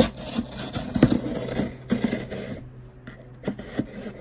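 A knife slitting open the tape and cardboard of a shipping box: a string of irregular scrapes and scratches, with sharp knocks at the start and around one and two seconds in.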